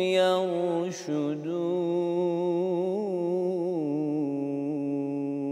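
A man chanting Quran recitation, singing the verse's last word 'yarshudun'. He then holds its final syllable in one long, wavering melodic line.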